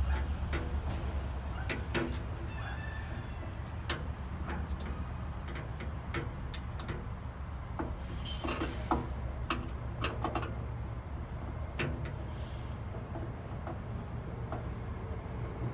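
Scattered metal clicks, taps and scrapes of hands working inside a steel pellet-grill barrel, fastening a temperature sensor in place with a screw.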